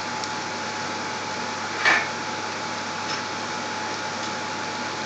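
Onions and spices frying in a pot on a gas hob: a steady sizzling hiss with a faint steady hum under it, and one brief louder crackle about two seconds in.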